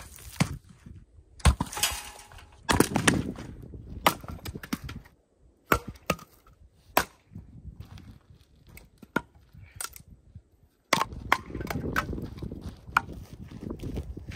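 A hatchet chopping and splitting firewood on a wooden chopping block: many sharp, irregularly spaced strikes of the blade into wood.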